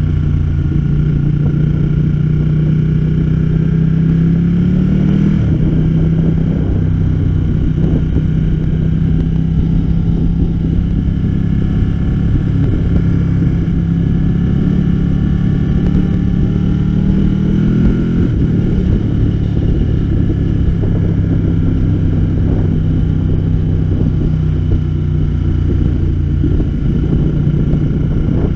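Ducati Panigale motorcycle engine heard from on board while riding, rising in pitch as it pulls through the gears. Each rise breaks off with a sudden drop at an upshift, about five seconds in and again about eighteen seconds in.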